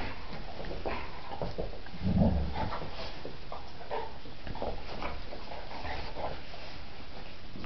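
Two dogs, one a German Shorthaired Pointer, play-fighting: scuffling, panting and small whimpering sounds, with one louder low sound about two seconds in.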